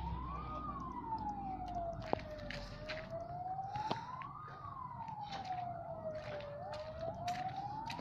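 Emergency siren wailing, one tone rising and falling in a slow cycle about every four seconds, with scattered sharp clicks over it.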